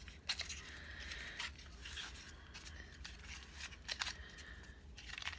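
Product packaging of a small liquid eyeshadow being handled and opened by hand: scattered light clicks, rustles and tearing.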